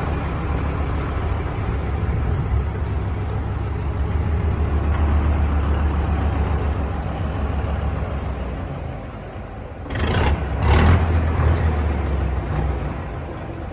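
Large vehicle engine running with a steady low rumble. About ten seconds in come two short, loud bursts of noise a little under a second apart.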